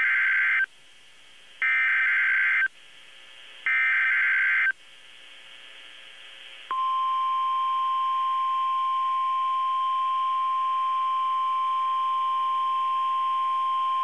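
NOAA Weather Radio EAS/SAME alert header: three roughly one-second bursts of warbling two-tone digital data about a second apart, the first already sounding at the start, with faint radio hiss in the gaps. About seven seconds in, the steady 1050 Hz Weather Radio warning alarm tone begins and holds. The alert is coded as a Hurricane Warning (HUW) although it carries a hurricane force wind warning.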